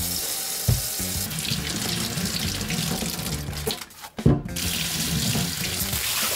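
Tap water running into a kitchen sink, with a short break about four seconds in.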